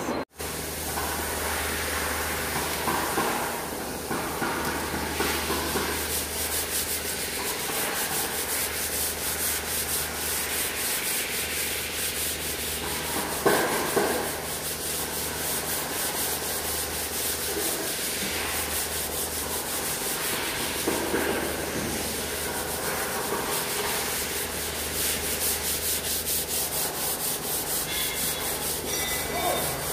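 Hand sanding of a Ford Explorer's front fender: sandpaper rubbed over the paint and bare-metal patches in quick back-and-forth strokes, over a steady low hum.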